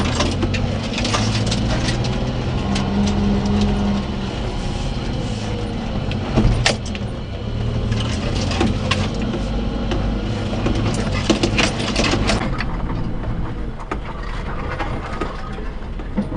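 1992 Daihatsu Hijet Climber's 660cc carbureted three-cylinder engine running as the mini truck crawls over rough forest ground, heard from inside the cab. The cab and its load keep rattling and knocking over the bumps, with one sharp knock about six and a half seconds in.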